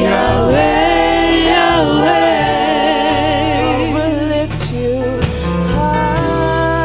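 Gospel music: voices singing with vibrato over a steady bass accompaniment.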